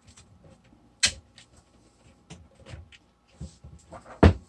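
Handling noise from working the Onewheel Pint's motor cable connector loose: scattered small clicks and rustles, with two sharper knocks, one about a second in and a louder one near the end.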